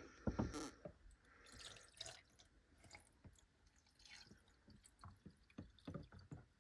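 Faint water dripping and trickling with small splashes and light plastic clicks, as water is poured back into a small plastic test-tube container.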